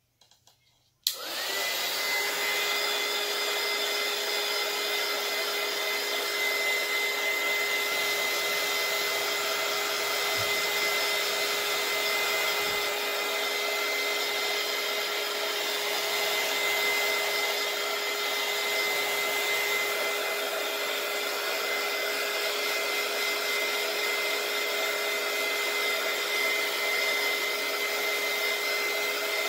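Small craft heat gun switched on about a second in, then running steadily: a rush of blown air with a steady whine from its fan motor.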